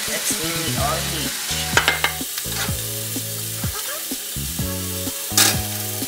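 Chicken breasts sizzling as they fry in oil in a nonstick pan, a steady hiss, with a couple of sharp clinks. Soft background music with held low notes runs underneath.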